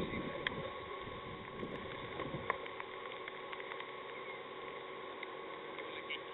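Quiet outdoor background: a steady hiss with a low rumble in the first couple of seconds and a few small clicks.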